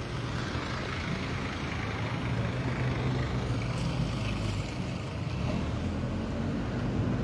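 Street noise with a vehicle engine running steadily: a low, even hum under a constant haze of traffic sound.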